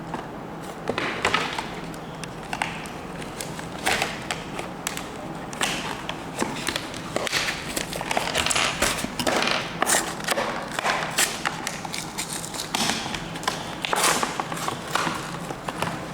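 Hands opening a Beyblade top's plastic packaging: irregular clicks, taps and rustles of plastic being handled.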